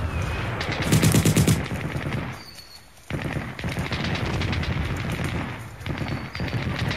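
Machine-gun fire: long, rapid bursts of automatic shots, loudest about a second in, with a short lull a little before halfway, then steady firing again.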